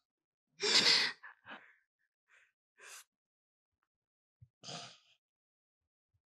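A person crying: a loud, heavy sobbing sigh just under a second in, followed by several shorter, fainter sobbing breaths and gasps.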